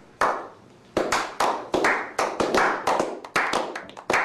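A slow clap by a small group of people. The hand claps come one at a time at first, with a long gap early on, then quicken from about a second in to around four a second.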